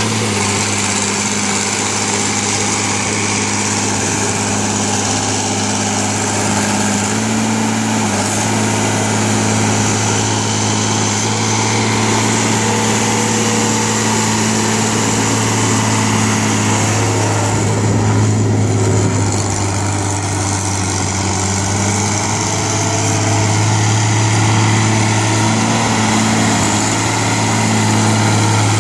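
International 3600A backhoe engine running steadily, an even drone that shifts slightly in tone a few times.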